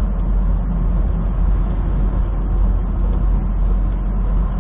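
Semi truck driving on the road, heard from inside the cab: a steady low engine and road rumble.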